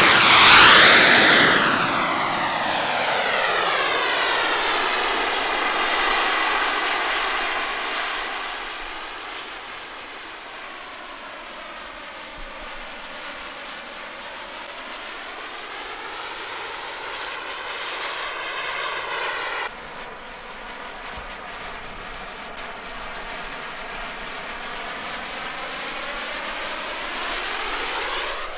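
Turbojet engine of a large radio-controlled model jet (about 180 N thrust) running at high power. It is loudest as the plane speeds past on its takeoff run, its pitch falling as it goes by, then it carries on as a steady whine that swells and fades as the plane flies around overhead.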